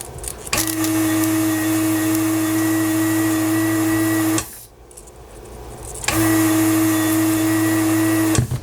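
Electric desoldering gun's vacuum pump running in two bursts, one of about four seconds and one of about two, with a steady hum as it sucks molten solder off the battery's joints on a circuit board.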